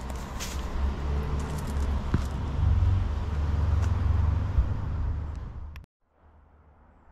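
Low rumble of a motor vehicle engine with a few light clicks over it. It eases a little, then cuts off abruptly about six seconds in, leaving faint background.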